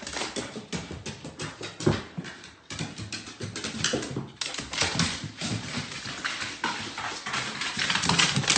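A dog's claws and paws clicking and tapping on wooden stairs as it makes its way down the steps, a quick, uneven run of taps.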